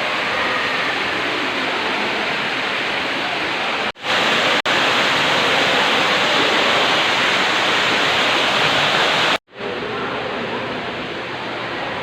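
Steady rushing of falling water, like a waterfall, running as an even hiss. It breaks off briefly twice, about four seconds in and again near ten seconds, and is a little quieter after the second break.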